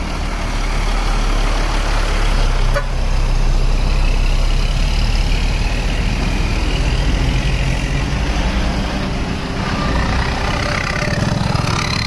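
Tour buses' diesel engines running as the coaches drive past close by, one after another.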